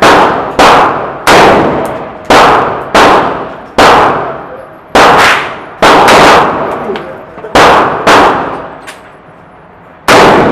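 AR-15 rifle fired semi-automatically indoors: about ten single shots at an uneven pace, roughly one every half second to a second and a half, each followed by ringing echo in the range.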